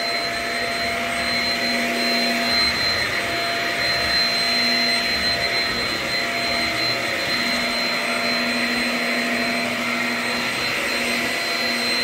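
Shark Rocket self-cleaning stick vacuum running steadily while vacuuming a hardwood floor: a constant motor whine with a thin high tone over an even rushing hiss.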